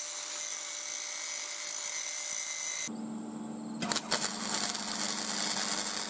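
Angle grinder with a cutting disc slicing through square steel tube, a steady whine. About three seconds in it gives way to a low steady hum, and then the crackle and sizzle of a MIG welder laying a bead.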